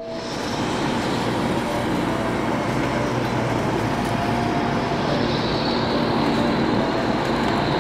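Steady engine and road noise of a moving motor vehicle, an even rumble and hiss with faint tones coming and going.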